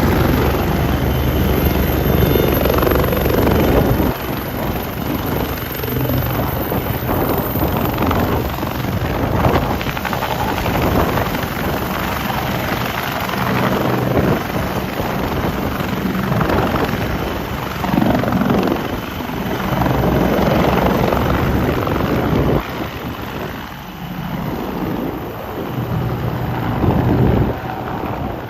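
Bell 430 twin-turbine helicopter taking off, its rotor and turbines running loud and steady. The noise drops a step about four seconds in and again near the end.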